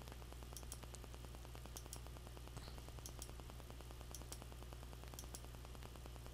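Faint steady low hum and hiss, with a fine rapid ticking and occasional faint high clicks.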